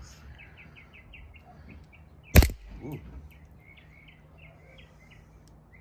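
A single sharp shot from a green-gas blowback airsoft pistol, a Lancer Tactical LTX-6BN-M, about two seconds in. Behind it runs a rapid, even series of high chirps.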